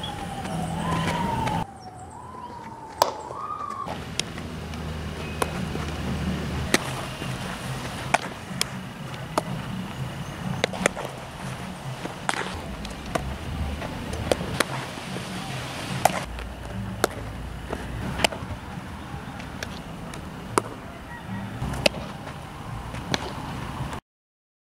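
Outdoor sound of infield baseball practice: sharp pops and cracks every second or two as a baseball is hit and caught in gloves, over a low steady rumble. A siren wails in repeated rising glides for the first few seconds, and the sound cuts off suddenly near the end.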